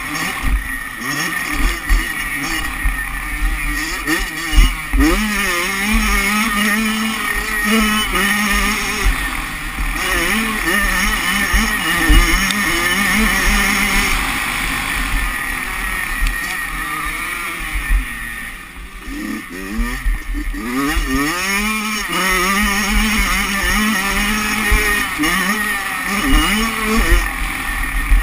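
Kawasaki 85cc two-stroke motocross bike engine revving hard, its pitch rising and falling over and over as the rider works the throttle and gears, easing off briefly about two-thirds of the way through. Wind buffets the mounted camera's microphone, with low thumps over the rough track.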